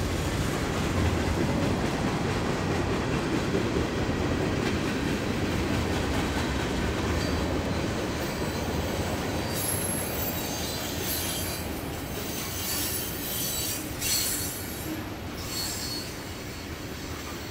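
Norfolk Southern freight train's cars rolling past with a steady low rumble, and high-pitched wheel squeal coming and going in the second half.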